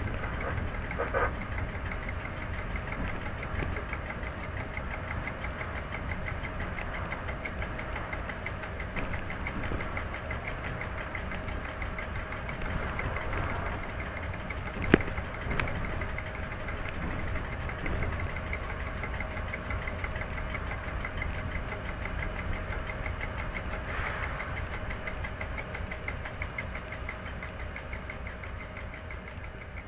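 Class 731 diesel locomotive's engine running steadily, heard from inside the cab. A single sharp click comes about halfway through.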